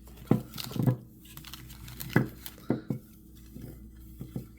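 Hands handling plastic toy packaging and blind bags: about six short knocks and crinkles, spaced irregularly.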